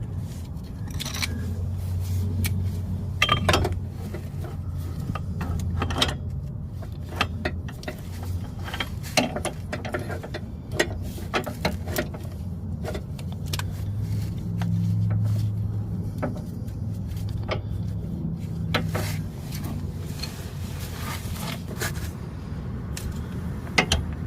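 Scattered metallic clicks and clinks of a ratchet and 19 mm deep socket working on a car's manual-transmission backup light switch, over a low steady hum.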